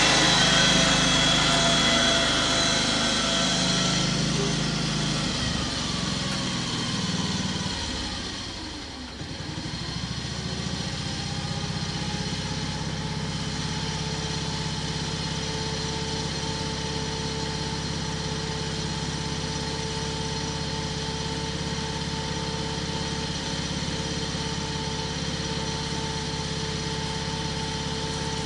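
Riding lawn mower engine running. It shifts in pitch and fades to a low point about nine seconds in, then runs steadily at an even pitch for the rest of the time.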